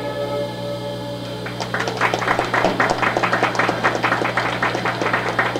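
The last notes of a yangqin (Chinese hammered dulcimer) ensemble ring and fade out. About a second and a half in, a small audience starts clapping, with individual claps distinct.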